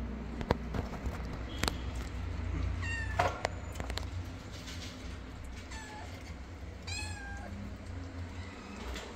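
Cat meowing: three short, high meows, the first about three seconds in, then two more around six and seven seconds. Two sharp clicks come near the start.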